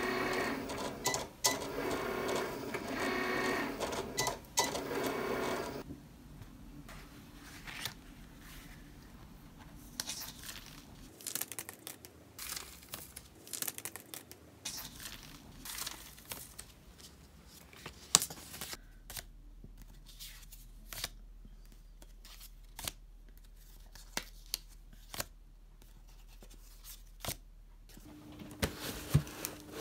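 Cricut cutting machine running through a cut, its motors whirring in shifting runs, stopping about six seconds in. After that come quieter scattered clicks, taps and paper rustles as the cut sticker sheet is handled and its waste backing is peeled away.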